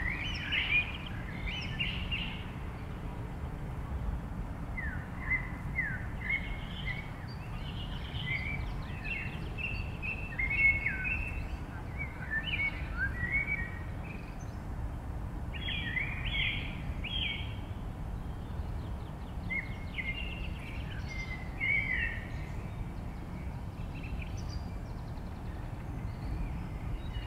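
Birds chirping: short calls again and again, some sliding down in pitch, over a steady low rumble.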